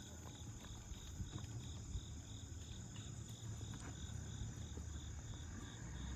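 Insects calling in a steady high chorus, one of them chirping about three times a second, over a low rumble.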